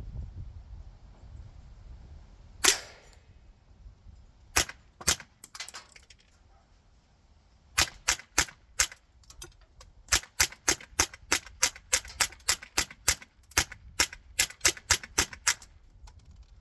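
Suppressed Smith & Wesson M&P 15-22 rifle firing standard-velocity .22 LR rounds, sounding as sharp pops rather than full gunshots. A single louder shot comes about three seconds in, then a couple of spaced shots. From about eight seconds in there is a fast string of some two dozen shots, about three to four a second with brief pauses.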